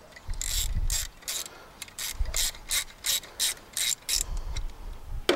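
Hand ratchet clicking at about three clicks a second as it turns a spark plug counterclockwise to unscrew it from the N54 cylinder head, with a few dull low knocks of the tool being handled. The clicking stops about four seconds in.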